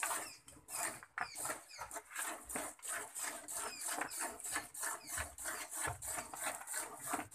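Hand milking: jets of milk squirting from a desi cow's teats into a steel pail, in an even rhythm of about four squirts a second.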